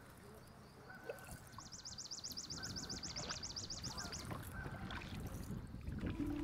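A small songbird's rapid, dry trill of about ten notes a second, lasting close to three seconds, with a few short calls from other birds. Underneath is a low rush of water and paddling that grows louder.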